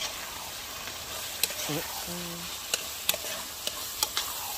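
Ackee frying and sizzling in a pot while it is stirred, the spoon knocking sharply against the pot about five times. It is stirred constantly so the sticky mixture won't stick.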